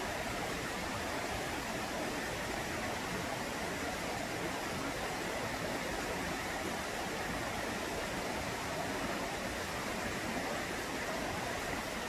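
Steady rush of running stream water, even and unbroken.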